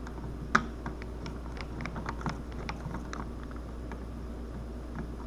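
Irregular small clicks and taps of hands and a tool working at a plastic wall rocker-switch plate, with one sharper click about half a second in, over a steady low hum.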